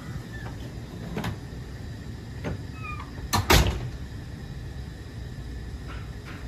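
A few scattered knocks and clicks, the loudest a quick double knock about three and a half seconds in, like a cabinet door being shut, over a steady low hum.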